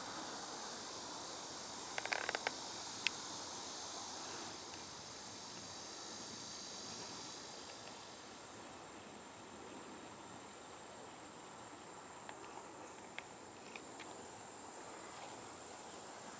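Faint, steady buzzing of summer insects over a soft hiss, with a few sharp clicks about two seconds in.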